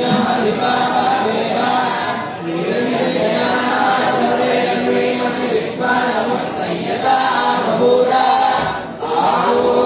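Many voices chanting together in a continuous, unbroken group chant.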